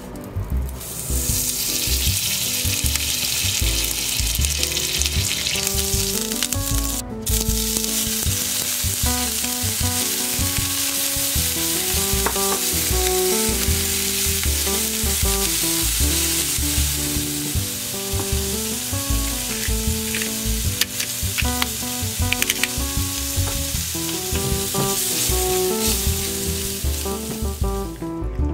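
Shrimp frying in butter in a rectangular nonstick pan, a steady sizzle as they are turned with a wooden spatula; the sizzle breaks off briefly about seven seconds in. Background music with a steady beat plays underneath.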